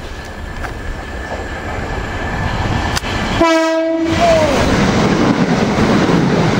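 Electric multiple-unit passenger train running through the station at speed, its wheels on the rails growing louder as it nears and passes. About three and a half seconds in it sounds its horn once: a short single-note blast whose pitch dips as it ends.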